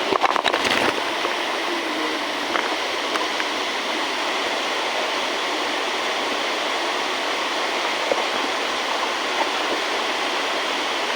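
Steady rushing water, like a stream or small waterfall, with a few sharp clicks in the first second.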